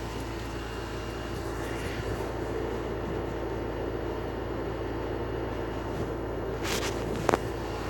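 A steady low mechanical drone with fixed hum tones, broken near the end by a short burst of noise and then a sharp double click.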